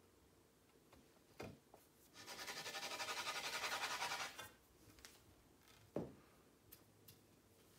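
A pool cue tip being chalked: about two seconds of scratchy rubbing with a fast flutter, then a single sharp knock a couple of seconds later.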